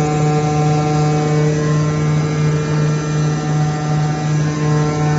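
Hydraulic test bench running, its electric motor and hydraulic pump giving a loud, steady hum with a low, even pitch.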